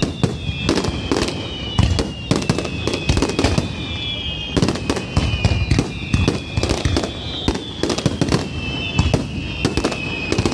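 Fireworks finale barrage: dense bangs and crackles in rapid succession, several a second, with thin high whistles drifting slightly down in pitch over the top.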